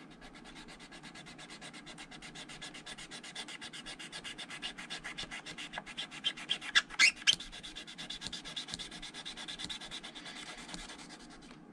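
Skiving knife shaving the end of a new leather welt strip in quick, rhythmic short strokes, tapering it down to a thin edge. A few louder scrapes come about seven seconds in.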